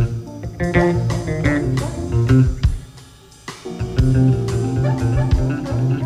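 Instrumental background music: plucked guitar over a bass line, dropping briefly to a lull about halfway through.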